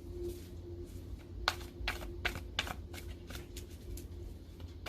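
A deck of angel oracle cards being shuffled by hand: a string of short, sharp card snaps, about two or three a second, starting a second and a half in.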